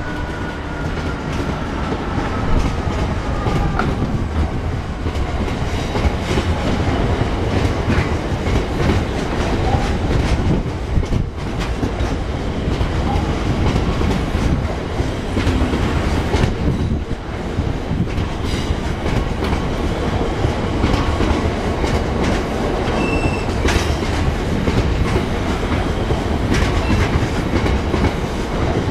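Freight train of covered hopper wagons rolling past close by: a steady rolling noise with wheels clicking over the rail joints. A faint falling whine fades out over the first few seconds.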